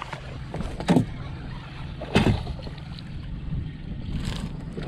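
A bass being landed in a boat: two loud sudden splashing thumps, about a second apart, over a steady low boat-motor hum.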